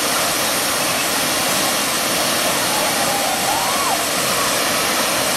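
Steady rush of water spilling over the low check-dam cascade of Balmuri falls on the Kaveri river.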